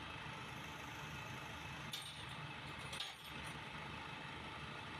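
Two light metal clinks about a second apart, as a steel hand tool knocks against parts in the open crankcase of a Loncin 200cc motorcycle engine, over a steady hiss and low hum.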